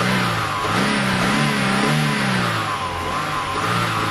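A car engine revving up and down over and over, its pitch rising and falling in repeated swells.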